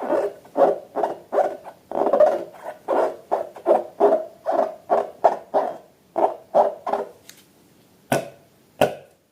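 Slime being squeezed and worked by hand, giving a quick run of squelchy pulses, about two or three a second, that stops about seven seconds in. Two sharp clicks follow near the end.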